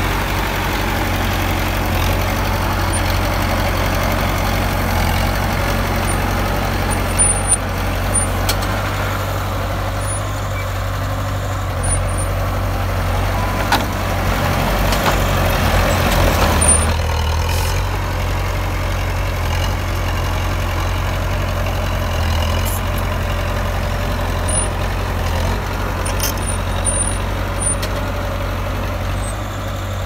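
Heavy diesel earthmoving machinery running steadily with a deep, constant hum. The noise swells about halfway through, then drops back suddenly, as under load or a throttle change.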